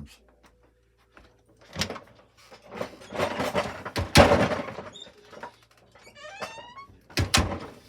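A house door with squeaking hinges being worked: a loud thud around the middle, a short run of squeaks about six seconds in, and two sharp clicks near the end.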